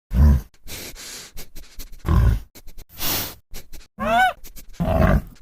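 Panda calling: a series of short, low grunts, with one brief pitched call that rises and falls about four seconds in.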